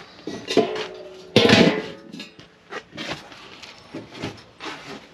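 Galvanized metal feed-can lid clanking and ringing as it is lifted off and set down, with the loudest clang about a second and a half in. This is followed by smaller rattles and scrapes as a plastic scoop digs into whole shelled corn.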